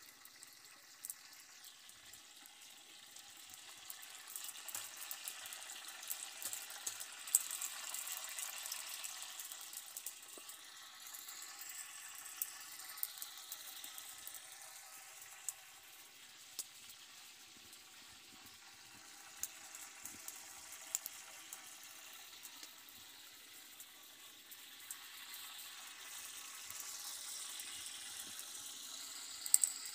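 Open wood fire burning under a large cooking pot: a steady faint hiss with scattered sharp crackles and pops.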